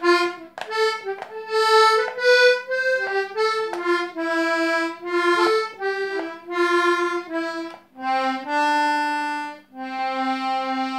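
Two-row button melodeon playing a short run of notes, ending in two long held chords. Its bellows are freshly resealed with a new gasket and hold good compression, with a full, even sound.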